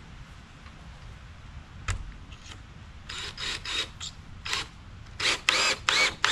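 Cordless drill driving screws into a plywood panel in short bursts of motor whine, the longest and loudest near the end. A single knock about two seconds in.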